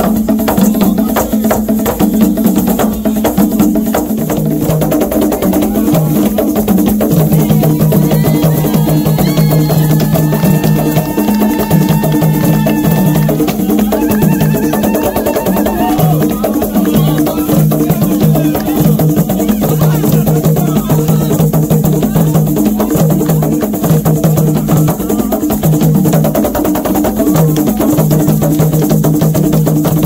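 Live ensemble of tall wooden Congolese hand drums playing a fast, steady dance rhythm. A few held higher notes sound over the drumming around the middle.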